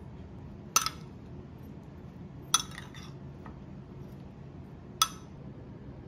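A metal spoon clinks against a ceramic bowl while a cucumber and tomato salad is tossed: three sharp, ringing taps, about a second in, at two and a half seconds and at five seconds, over a steady low room hum.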